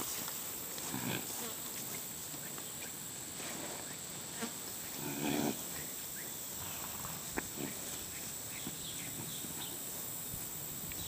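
A horse gives a brief low, pulsed sound about five seconds in, with a smaller one about a second in and a single sharp click a couple of seconds after it, over a steady hiss.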